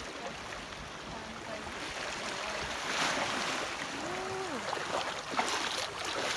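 Shallow seawater washing and lapping around rocks, a steady rush that swells about three seconds in, with a few small splashes after five seconds.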